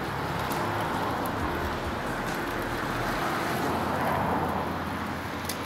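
Steady road traffic noise, swelling slightly about four seconds in.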